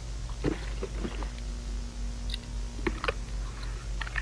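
A person chewing chocolate candy close to the microphone, with irregular small mouth clicks and smacks.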